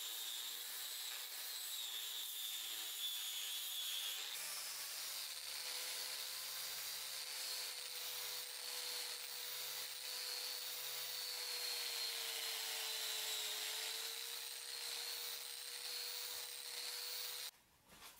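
Angle grinder with a sanding disc on a rubber backing pad grinding rust off a steel meat cleaver blade: a steady high whine over the rasp of abrasive on metal. The whine shifts in pitch about four seconds in, and the grinding cuts off suddenly near the end.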